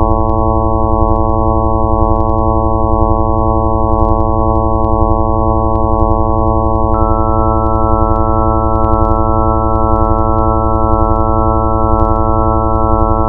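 Electronic drone of many steady sine tones stacked in pitch over a deep, rapidly pulsing low end. A higher tone joins about seven seconds in.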